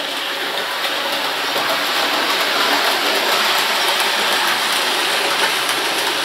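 OO gauge model Warship diesel locomotive running round the track hauling wagons and a coach: a steady whirring rush of the motor and the wheels on the rails, a little louder as it comes past, with faint ticks.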